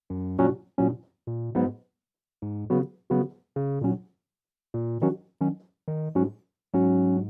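Electric keyboard playing the intro of a slow R&B song: a run of short, detached chords with brief silences between them.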